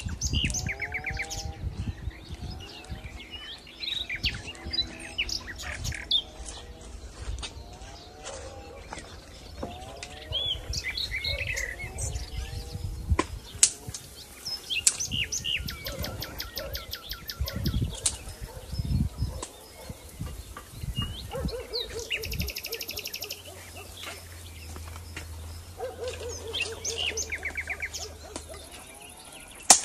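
Several birds singing and chirping, with quick rattling trills and repeated short calls, over occasional low thumps and rumble.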